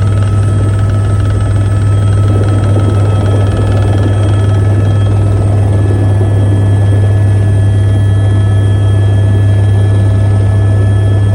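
Helicopter in flight: a loud, steady low drone from the rotor with constant high-pitched turbine whine over it, unchanging throughout.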